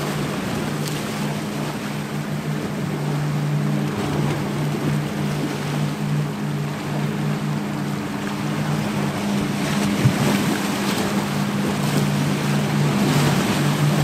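Sea waves breaking and washing over rocks, a dense steady surf wash, with a sharper splash about ten seconds in. A steady low hum runs underneath, dropping out briefly in the middle.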